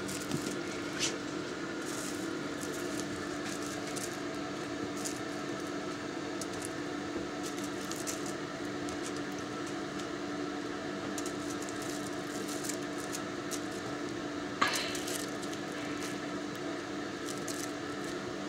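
Steady low room hum with faint, scattered clicks and rustles of kittens playing with small toys on carpet and a towel, and one brief sharper sound about fifteen seconds in.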